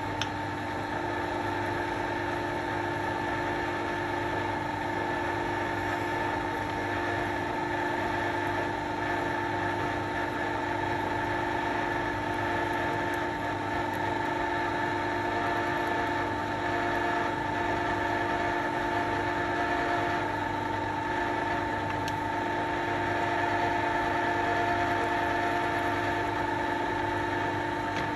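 Metal lathe running steadily while a machine reamer is fed into a drilled hole in a steel block, giving an even hum of motor and gearing at several fixed pitches.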